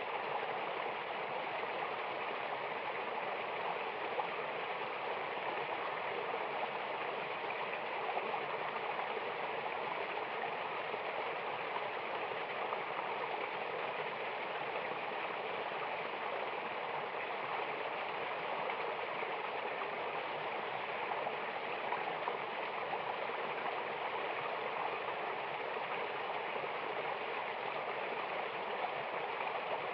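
Rushing water of a mountain waterfall and river: a steady, even rush with no breaks or single events.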